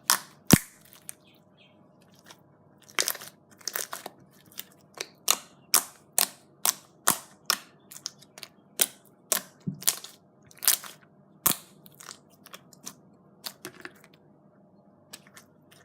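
Slime being poked with a finger at a steady pace, each poke giving a sharp sticky pop or crackle, about two a second, with a short pause near the start.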